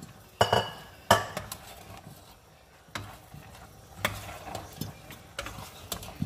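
A utensil stirring pasta into a simmering pan of sauce, scraping and knocking against the pan about seven times over a faint sizzle.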